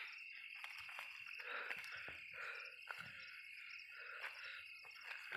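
Night chorus of insects: a steady high drone with a faster pulsing trill above it, and frogs croaking off and on, plus a few faint clicks.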